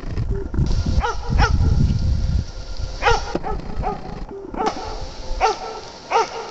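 Jämthund (Swedish elkhound) barking, about eight short barks each dropping in pitch, with a low rumble under the first couple of seconds.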